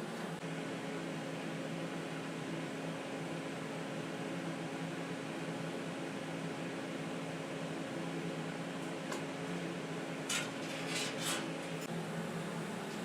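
TIG welding arc humming steadily for about eleven seconds as a weld is laid on the steel tube frame, then cutting off as the torch is released. A low machine hum runs underneath, and a few short sharp ticks follow near the end.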